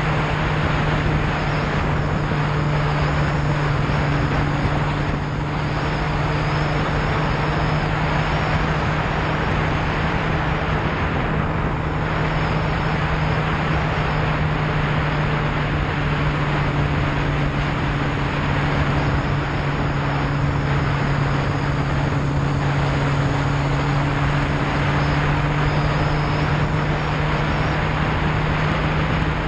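Yamaha Fazer motorcycle engine running at steady cruising revs, its hum holding an even pitch, under a constant rush of wind over the microphone.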